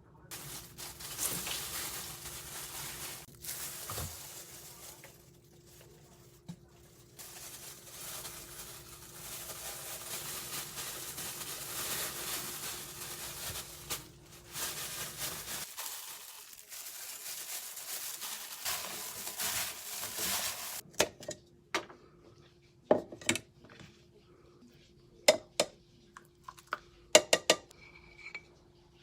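Kitchen handling sounds: a long stretch of rustling, crinkling noise, then a series of sharp clinks and knocks of dishes and utensils in the last several seconds.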